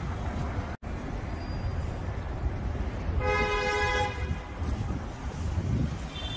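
Steady city street traffic rumble with wind on the microphone, and a car horn sounding once for about a second, about three seconds in. The sound cuts out completely for an instant near the start.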